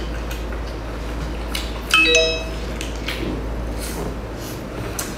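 A single bright, bell-like ding about two seconds in, ringing for about half a second, over a steady low hum and a few faint clicks from a cooked lobster claw shell being handled.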